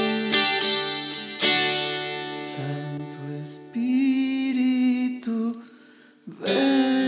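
Guitar playing an instrumental passage of a slow worship song, with ringing chords that fade almost to silence a little before the end. A fresh strummed chord then comes in.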